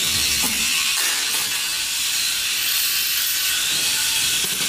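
JXD mini electric RC racing motorbike whirring as it drives, a steady high-pitched mechanical whir.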